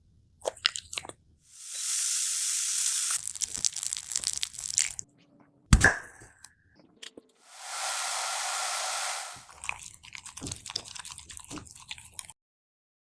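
Dog chewing and crunching on grilled beef, with scattered crackly bites. Two stretches of steady hiss, each about two seconds, and one sharp knock near the middle.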